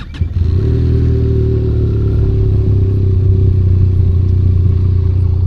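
Benelli Leoncino 500 Trail's parallel-twin engine running at a steady, low speed, cutting in abruptly a moment after the start.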